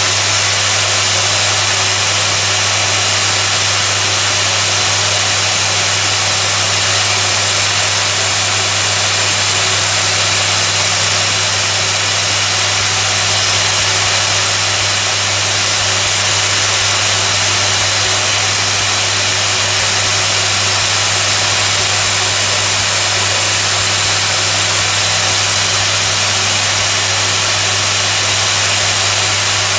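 Tool-post grinder spindle running at about 11,000 rpm, its pink grinding wheel grinding the jaws of the turning lathe chuck: a steady high hiss over a constant low hum.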